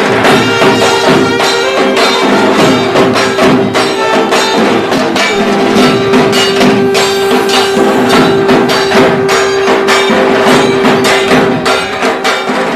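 Durga Puja ringtone music: traditional festive music with fast, dense drumming and jingling percussion over a long held note, starting to fade near the end.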